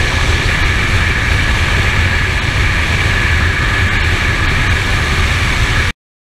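Touring motorcycle riding along at road speed: steady wind rush buffeting the microphone over the running engine. It cuts off suddenly near the end.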